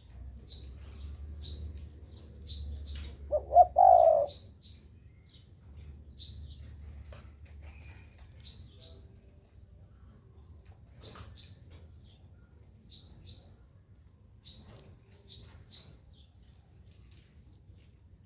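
Sunbird chirping: short, high, falling chirps, often in pairs, repeated every second or two. A spotted dove gives one short, loud coo about three and a half seconds in.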